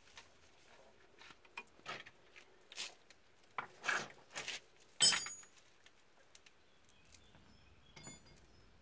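Scattered metallic clinks and knocks of tools and steel suspension parts being handled, with a sharp ringing metal clank about five seconds in and a smaller ringing clink near the end.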